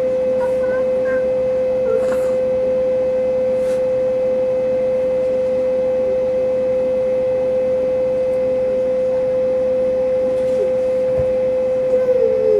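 A loud, perfectly steady tone at one pitch runs throughout. Over it come a few faint brief baby sounds in the first couple of seconds and a falling baby vocal sound near the end.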